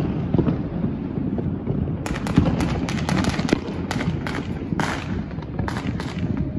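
Fireworks going off, a rapid run of sharp pops and crackles from about two seconds in to near the end, over a steady low rumble.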